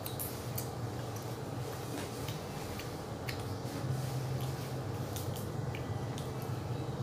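Steady low hum with small scattered clicks over it.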